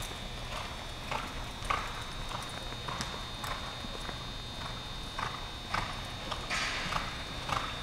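A horse loping on a dirt arena floor: its hoofbeats come as short strikes in an uneven rhythm, somewhat under two a second.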